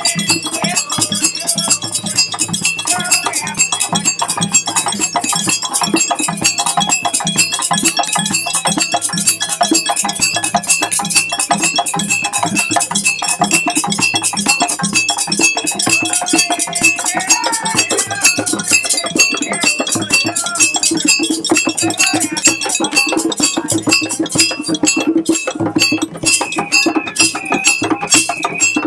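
A group of West African hand drums, djembes and taller drums, played fast and continuously in an interlocking rhythm, with a high ringing metallic tone pulsing over the drums.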